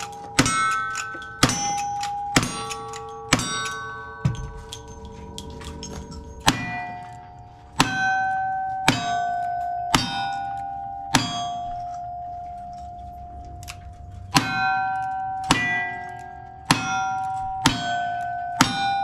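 Gunshots hitting steel targets, each shot followed at once by the ringing clang of the struck plate. There are about a dozen hits, roughly one a second: a few early ones from a lever-action rifle, then a string from a single-action revolver with a pause of a few seconds partway through.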